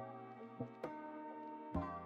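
Music with sustained, ringing notes and a few sharp percussive hits, the strongest near the end.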